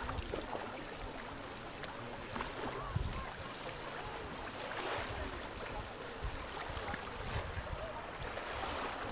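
Small waves washing onto a sandy beach, a steady hiss of surf that swells about halfway through and again near the end.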